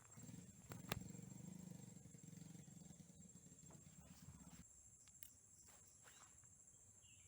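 Near silence: faint outdoor ambience with a steady high insect drone. A low hum fades out about two-thirds of the way through, and there is a single click about a second in.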